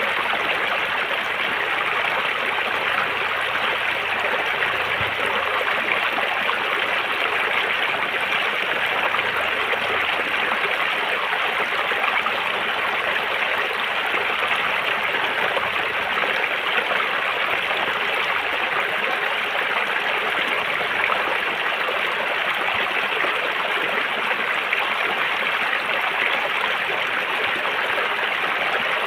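River water running over rocks: a steady, unbroken rushing and babbling.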